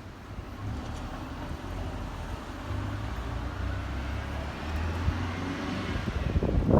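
A vehicle's low engine rumble under a steady haze of traffic noise that grows slowly louder, with a faint rising whine around the middle.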